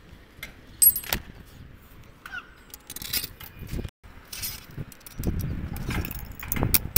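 Metallic clinks and knocks as an aluminium lightning-protection rod is set into its concrete base and its clamp is fitted, with short scraping sounds. A low rumbling noise joins in the second half.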